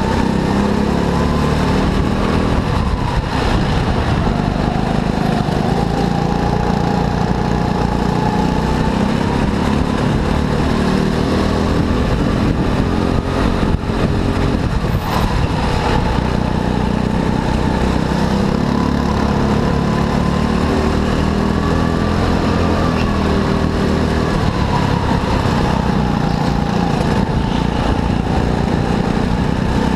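Go-kart engine running hard under racing load, its pitch rising and falling again and again as the throttle opens on the straights and eases into the corners.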